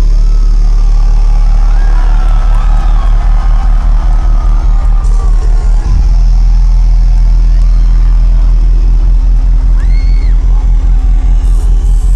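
Dubstep played very loud over a concert sound system, heard from within the crowd. Heavy, rapidly pulsing bass dominates and breaks briefly about six seconds in, with crowd voices yelling over it.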